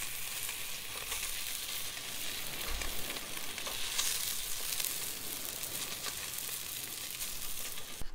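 Yellowfin tuna steaks sizzling steadily as they sear on a hot grill plate over a portable gas stove, cooked only on the outside. The sizzle cuts off suddenly at the very end.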